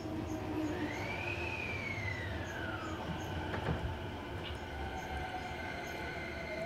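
Keio Series 5000 electric commuter train running, heard from inside the car: a steady rumble of wheels on rail with the whine of its VVVF inverter drive. One whine arches up and falls away about a second in, there is a single click around the middle, and another tone rises near the end.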